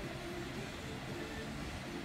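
Background music: a melody of short held notes over a steady low hum.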